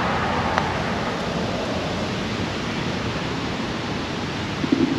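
Steady wind noise on the microphone, with a single light click about half a second in from a putter striking a golf ball.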